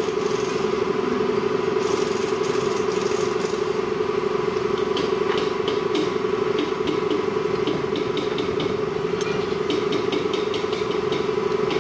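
A steady mechanical hum, one unchanging tone, runs throughout. From about halfway in it is joined by many light clicks and taps.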